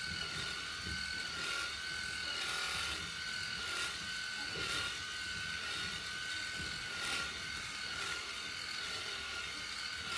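Electric livestock clippers running steadily with a high motor whine that wavers slightly in pitch, shaving the hair from a goat's belly.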